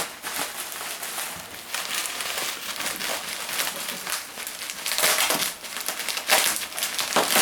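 Packing material crinkling and rustling as it is handled and pulled out of a shipping box, with louder crinkles about five, six and seven seconds in.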